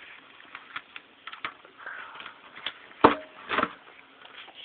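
Hands handling the parts of a burnt-out Fi BTL subwoofer during teardown: scattered light clicks and taps, with a sharp knock about three seconds in and another soon after.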